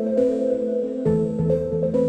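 Background music: held synthesizer chords over a bass line, with the chord changing about a second in.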